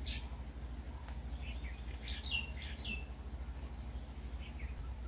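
Small birds chirping: short, quick downward-sliding chirps scattered throughout, with two louder ones between two and three seconds in, over a steady low hum.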